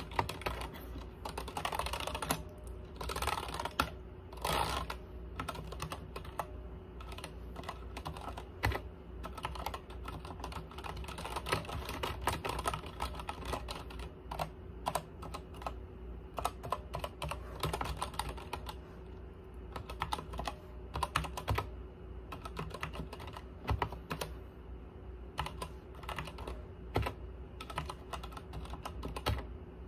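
Fast typing on a backlit computer keyboard: a steady, uneven stream of key clicks, over a faint steady hum.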